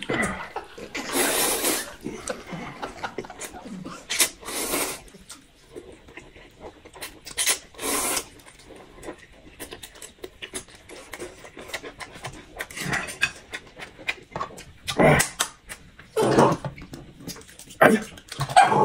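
Close-miked eating sounds: noodles slurped in several short loud bursts, with chewing and mouth noises between.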